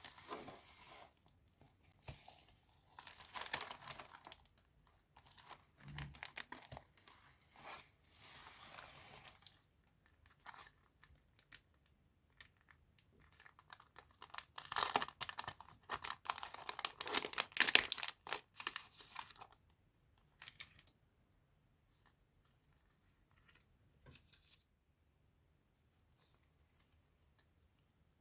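Packaging being torn open and crinkled by hand: bursts of tearing and crinkling, loudest about halfway through, then only a few light handling sounds.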